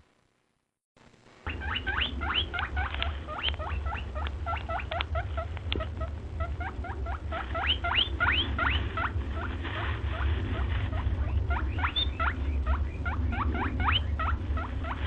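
A crowd of small animals calling over one another, many short, high squeaky calls that each rise sharply in pitch, a few a second, over a steady low rumble. The sound cuts out briefly near the start, then the calls carry on without a break.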